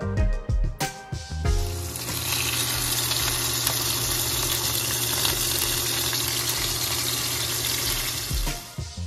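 Pieces of tilapia sizzling as they fry in hot oil in a pan: a steady, dense sizzle that sets in about a second and a half in and drops away near the end, with background music before and after it.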